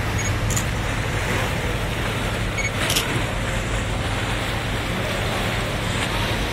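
A tour boat's engine running steadily, a low hum under a continuous rush of water and wind.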